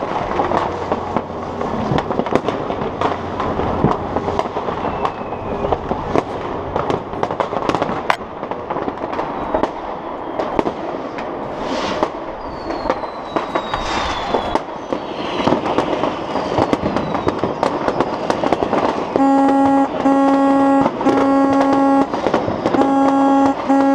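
Many fireworks going off across a city at once: a dense, continuous crackle of bangs and firecrackers, with a few whistling rockets in the middle. From about 19 seconds in, a loud horn close by sounds in a run of short blasts on the same low note.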